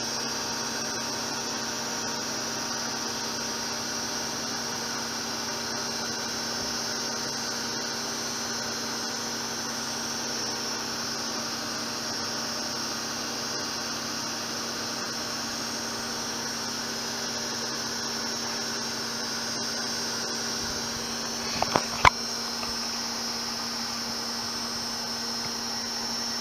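Zanussi ZWF 1432 washing machine on a fast spin: a steady motor whine and hum. Three sharp knocks come near the end.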